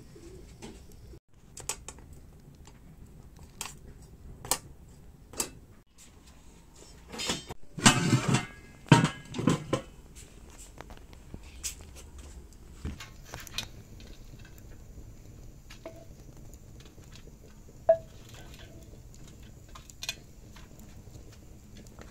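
Scattered clinks and knocks of cooking utensils at a wood-fire hearth: metal tongs, clay pot and steel tray. There is a louder run of clattering about eight to ten seconds in.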